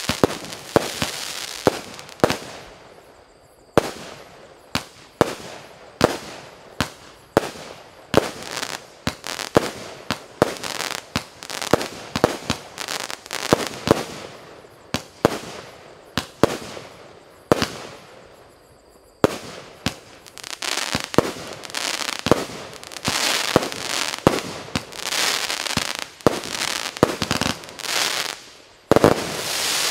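A 36-shot Piroff 'Blues' firework battery firing its shots in quick succession: sharp launch bangs and bursts about one or two a second, with a crackling hiss between them. There are two short lulls, about three seconds in and again past the middle, and the crackle is thickest in the last third.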